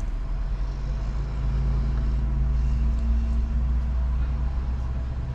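Car engine running at idle or low speed: a steady low hum, heard from inside the car.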